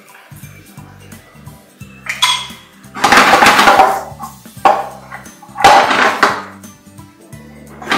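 Nonstick frying pan tossed about four times, the sliced porcini and peppers sliding and rattling in the pan, over steady background music.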